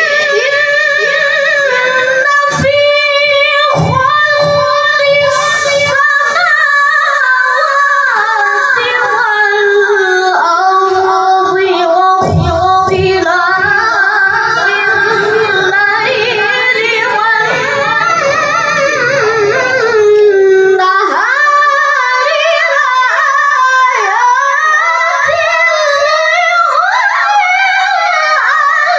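A solo voice singing a long, ornamented melody, with held notes that waver and bend in pitch.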